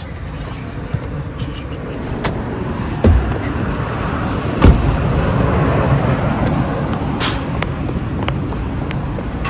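City street noise with cars passing. Two dull thumps come about three seconds in and again a second and a half later; the second is the loudest sound.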